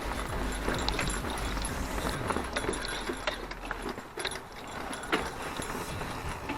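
Mountain bike rolling over a wet forest trail: tyre noise on dirt and roots, with many sharp clicks and rattles from the bike, such as chain slap. The loudest is a knock about five seconds in.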